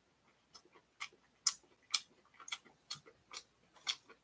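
A series of short, sharp clicks at uneven intervals, about ten in all, roughly two a second.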